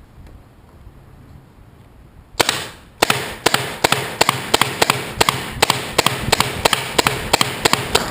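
Tippmann TiPX paintball pistol firing a rapid string of shots from a 15-round extended magazine, beginning about two seconds in, at roughly three to four shots a second.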